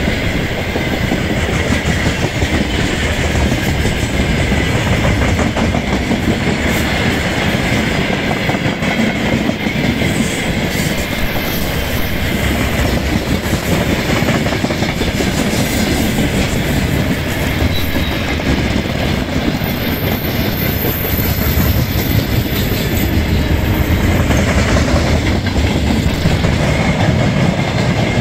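Freight train wagons (open gondolas, then tank cars) rolling past at close range: a steady rumble of steel wheels on the rails with clickety-clack over the rail joints.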